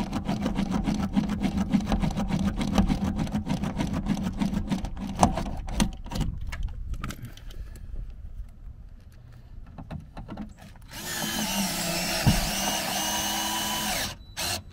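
Cordless drill drilling a screw hole through a plastic speaker mounting adapter in a car door. It runs with a rapid clicking buzz for the first five or six seconds, goes quieter, then runs at higher speed with a steady high whine for about three seconds near the end before stopping.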